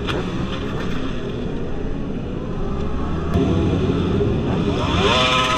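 Motorcycle engines running in street traffic, one revving up with a rising pitch near the end. A single sharp click sounds a little past the middle.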